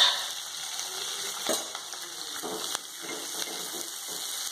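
Sliced onions frying in hot oil in a metal pot, a steady sizzle, with a sudden louder burst at the start as they hit the oil. A ladle stirs and scrapes them through the oil, with another sharp flare about a second and a half in.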